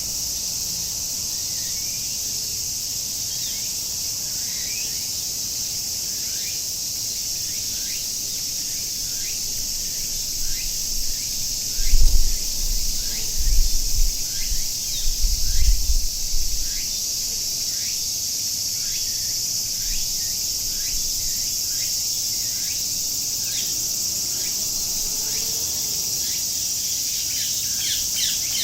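A steady, dense chorus of cicadas buzzing, with birds giving a series of short, downward-sliding chirps over it. Several low rumbling gusts come in between about ten and seventeen seconds in.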